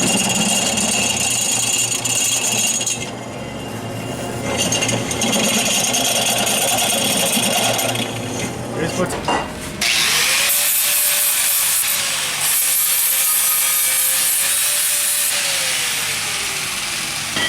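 Electric drill boring through steel, the bit cutting easily. About ten seconds in the sound changes to a steady whine with a hiss, and the whine drops in pitch near the end.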